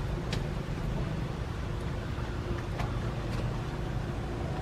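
Steady low background rumble with a few faint clicks.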